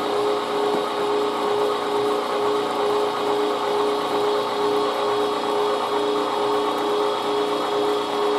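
MEAT! Your Maker 1.5 HP electric meat grinder running at a steady hum, its auger pushing pork through the fine grinding plate.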